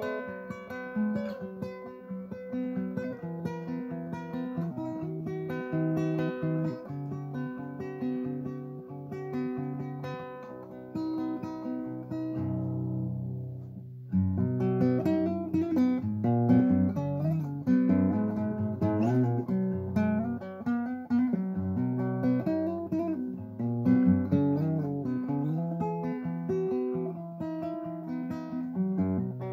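Nylon-string classical guitar playing an instrumental piece, picked notes over a moving bass line. About twelve seconds in a chord is left to ring and fade, and about fourteen seconds in the playing comes back louder and fuller.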